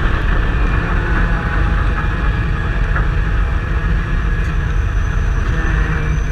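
Onboard sound of a Pro Truck stock car running around a short oval at an even pace: a loud, steady engine and rumble with no revving up or down and no sudden events.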